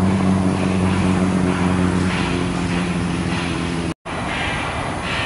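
Jet engines of an Ilyushin Il-76 freighter running on the ground, a steady drone with low hum tones that fade about two and a half seconds in. The sound drops out for an instant about four seconds in, then continues as a rushing jet noise.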